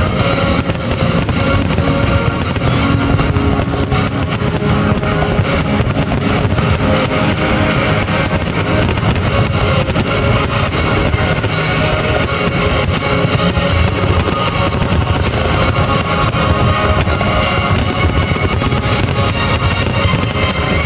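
Guitar-driven music playing over the rapid bangs and crackle of a fireworks display, many sharp reports scattered throughout.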